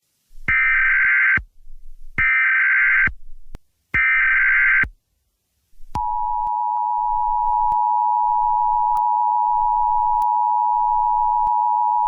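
Emergency Alert System tones. First come three SAME header data bursts, each about a second of rapid warbling digital tones. About six seconds in, the steady two-tone attention signal starts and holds, marking the start of an emergency alert broadcast.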